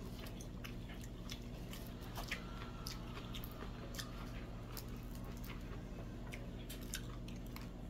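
A person chewing food, with many small scattered mouth clicks, over a steady low hum.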